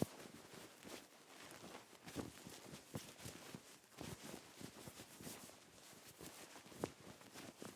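Thick sweatshirt fabric rustling, handled in irregular brushes and rubs, with a sharper swish a little before the end.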